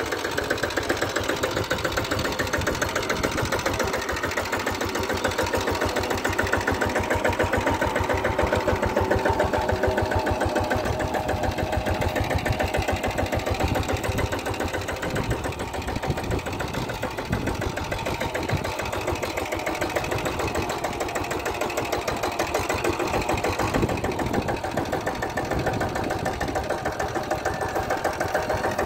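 Small mini tractor's single-cylinder engine chugging steadily as the tractor is driven across a ploughed field, a fast, even run of firing pulses at a constant pace.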